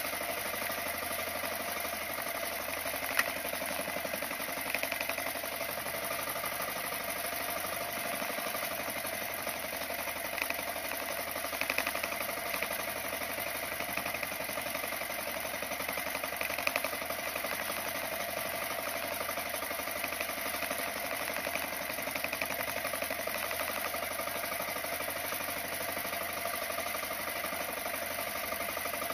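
Small engine of a motorized outrigger fishing boat running steadily under way, with a few sharp clicks and knocks over the drone, the loudest about three seconds in.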